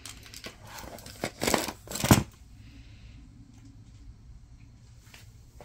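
Small camping odds and ends being handled and shifted about in a storage bin: a few short rustles and knocks in the first two seconds, the loudest about two seconds in, then quiet room tone.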